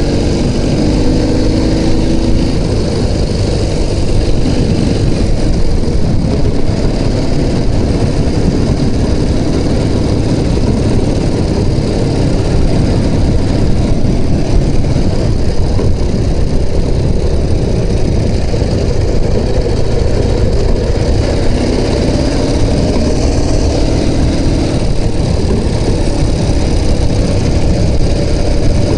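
Ural Turist motorcycle's flat-twin engine running steadily while riding along a dirt track, the engine note shifting in pitch near the start and again near the end.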